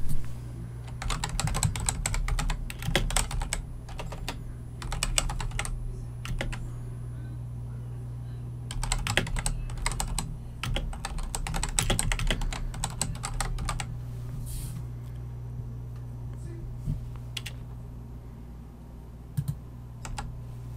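Typing on a computer keyboard: two runs of quick keystrokes with a pause of a couple of seconds between them, then a few scattered key presses. A steady low hum runs underneath.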